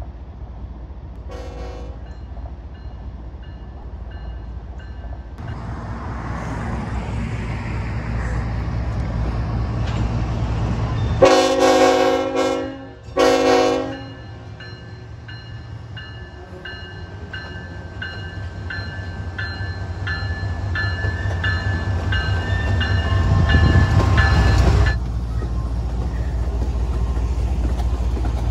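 Norfolk Southern GE ET44AC diesel locomotive approaching and passing under power, its V12 diesel engine rumbling louder as it nears and dropping off suddenly near the end as the cab goes by. The air horn gives a short toot about a second in, then a long blast and a shorter one near the middle. Under the engine a faint metallic ringing repeats.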